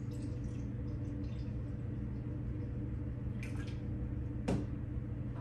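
Steady low electrical hum, with a few faint clicks and knocks from items being handled about three and a half seconds in and again a second later.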